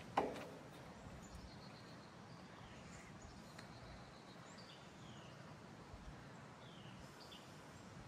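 Trane XR14 heat pump outdoor unit just after shutdown, its condenser fan coasting down with only a faint low whir. A sharp click just after the start, and short falling bird chirps here and there.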